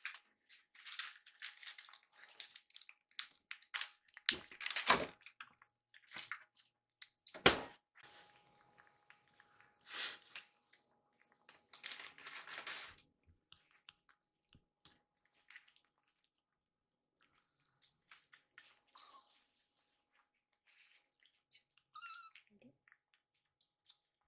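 Kittens eating wet cat food: rapid wet clicks and smacks of chewing and licking, dense in the first half and thinning out later, with two louder knocks in the first third. A short high-pitched squeak comes near the end.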